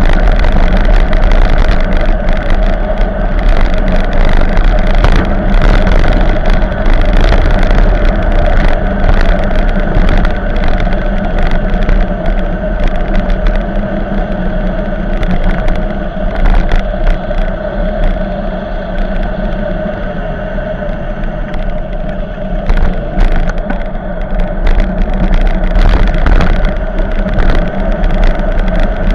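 Steady wind rush on the microphone with road and tyre rumble from a bicycle riding downhill at speed, with a few short knocks; it eases a little about twenty seconds in.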